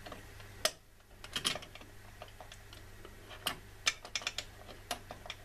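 Irregular small clicks and taps of plastic and metal as a Corsair H100i pump block is handled and screwed down onto its AM3+ CPU mounting bracket, over a faint steady low hum.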